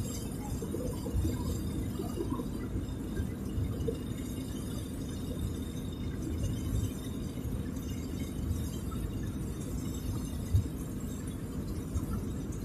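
Steady low rumble of road and engine noise inside a moving car's cabin, with one brief thump about ten seconds in.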